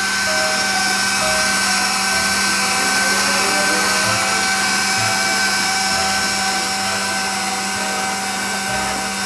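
Electric stand mixer running steadily, its motor giving a constant whine as it mixes batter.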